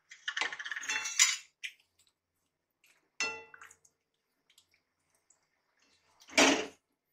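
Metal kitchenware clinking and scraping on a metal kadai: a scrape and clatter as gram-flour dumplings are tipped in from a steel bowl, a single ringing clink about three seconds in, and a short louder clatter near the end.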